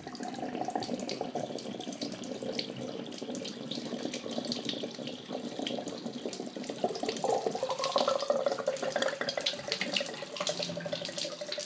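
Water spurting and running out of an opened Delta 1700 series tub/shower valve body as its cartridge is pulled out. It is leftover water in the line draining while the main supply is shut off. Small clicks of the plastic cartridge being handled come through the water.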